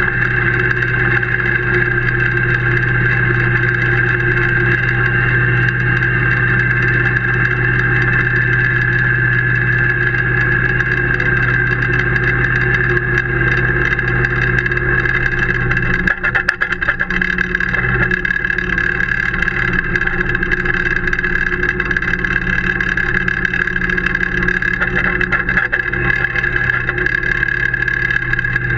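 Tractor engine running steadily at constant speed while towing a brush over an artificial pitch, with a short burst of rattling about halfway through.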